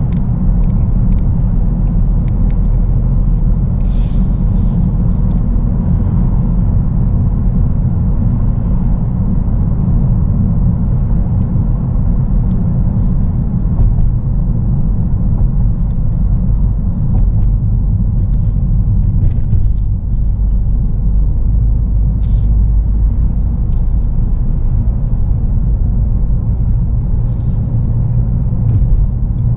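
Steady low rumble of road and engine noise inside a moving Ford Focus's cabin, with a few faint clicks.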